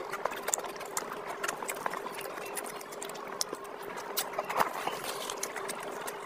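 Close-miked wet chewing and lip-smacking of a person eating oily curry and rice by hand: an irregular stream of quick wet clicks and squelches, with one louder smack a little past halfway.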